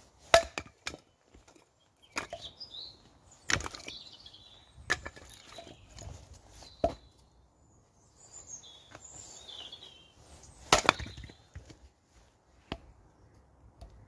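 Hatchet splitting firewood on a log: about seven sharp chops at uneven intervals, the loudest about a second in and again near the end.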